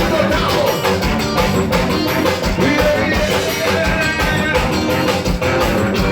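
Piseiro band playing live: an instrumental passage with a steady driving beat and a melody line over it, without singing.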